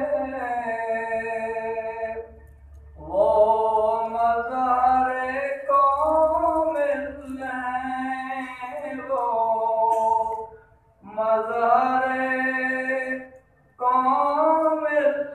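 A man's solo, unaccompanied voice reciting an Urdu naat, a devotional poem in praise of the Prophet, in long drawn-out sung phrases. It breaks off briefly three times between lines.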